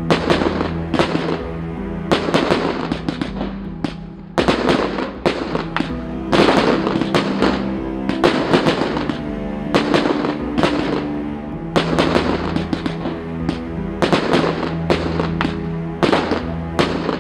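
Fireworks going off in a rapid series of bangs and crackles, about one or two a second, over steady background music.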